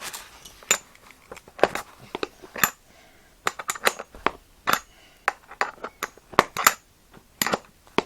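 Irregular metallic clicks and clinks of a spanner working the bolt of a BMX seat clamp, tightening it onto the seat rails.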